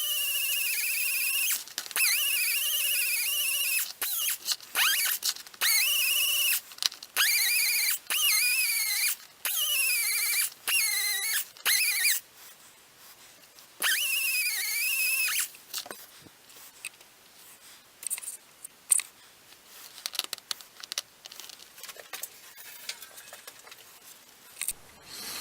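Angle die grinder with a Scotch-Brite pad running in short bursts of about a second, a high whine that dips and rises in pitch as the pad is pressed onto the metal bracket and eased off. The bursts stop a little past halfway, leaving only faint scattered clicks and handling.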